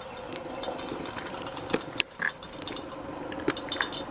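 Light clicks and taps of metal motorcycle parts being handled during air filter fitting, with a few sharper knocks about two seconds in and again near the end.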